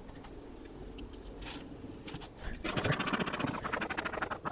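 A metal hive tool scraping against the wooden frames and box of an open beehive: a rapid, rasping scrape that starts a little past halfway, over a low background hum.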